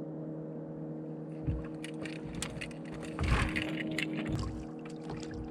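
A boat motor running steadily with a constant low hum, with scattered clicks and knocks and a few low thumps, the loudest just past the middle.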